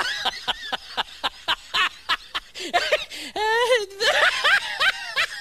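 Laughter in rapid short bursts, with a longer drawn-out note a little past the middle.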